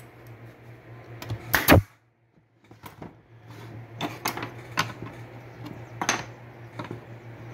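A pneumatic brad nailer fires once with a sharp crack a little under two seconds in, followed by half a second of silence. Then peroba wood slats clack and knock against each other and the workbench as they are handled, over a steady low hum.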